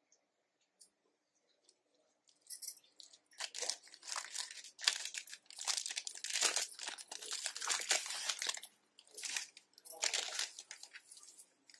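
Clear plastic jewellery packets crinkling as they are handled and opened. The crackling starts a couple of seconds in and goes on irregularly, with a short pause before a last spell near the end.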